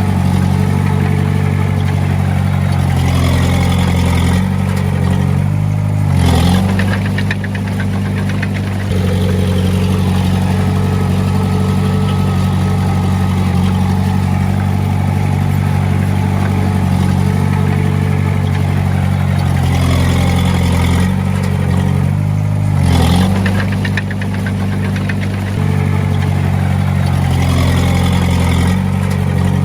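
Komatsu D20A bulldozer's diesel engine running steadily, its note dipping and recovering a few times as the load changes.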